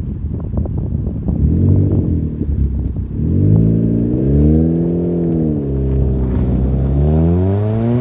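Vauxhall Astra H 1.6 engine through a Sportex cat-back exhaust, accelerating: the raspy exhaust note rises about three seconds in, falls away around six seconds, then climbs again near the end.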